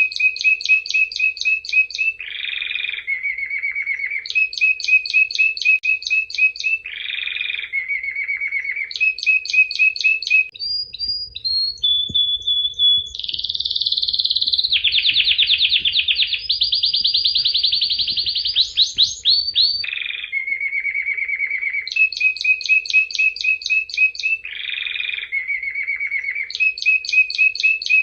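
Domestic canary singing: rolling tours of rapid trilled notes, with the same run of phrases coming round again about every four and a half seconds. In the middle the song changes to a short held whistle followed by a long, fast trill.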